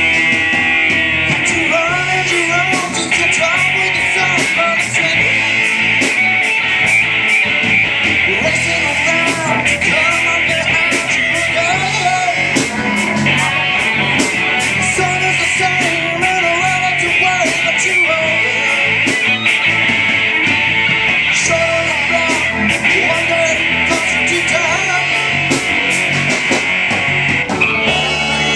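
Live rock band playing: electric guitars, bass, drums with frequent cymbal hits, and keyboard, loud and steady.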